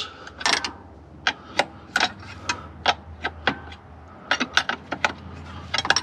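Hand tools working on a backhoe's fuel filter assembly: a run of sharp metallic clicks and clinks, irregularly spaced at about two a second, over a faint steady hum.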